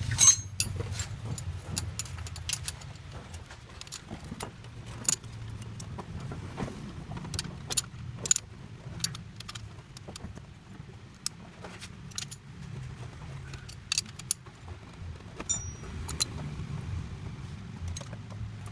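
Sharp metallic clinks and jingles at irregular intervals, like hand tools and parts being handled, over a steady low hum.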